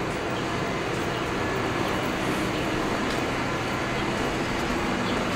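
A vehicle running steadily: an even engine drone under continuous road-type noise, with no sudden events.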